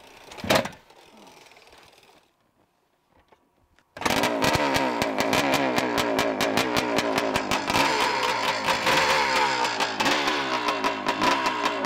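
A single loud thump about half a second in, then near silence. From about four seconds in, the 1971 Suzuki TM400 Cyclone's 400cc single-cylinder two-stroke engine is running, revved up and down, with rapid exhaust pops.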